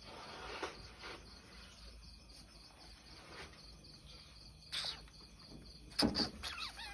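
Crickets chirping steadily in the background, with a few soft rustles and one louder knock near the end.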